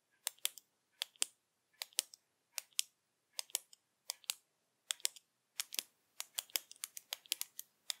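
Retractable pens clicked over and over by their push-buttons: short, sharp plastic clicks, mostly in pairs as each button is pressed and let go, coming thicker in the second half as several pens click at once.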